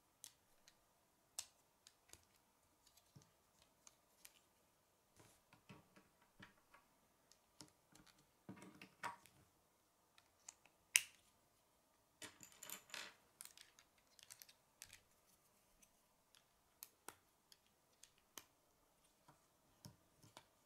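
Plastic K'nex rods and connectors clicking and snapping together as they are fitted by hand: scattered light clicks, one sharper snap about eleven seconds in, and a quick run of clicks just after.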